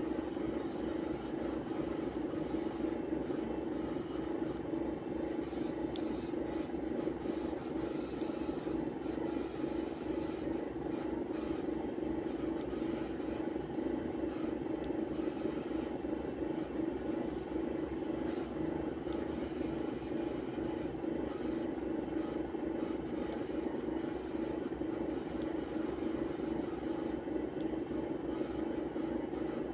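Parked bus making a steady, unchanging whirring drone with its engine and electrics switched off, which the owner likens to a ticket printer and wonders may be the batteries acting up.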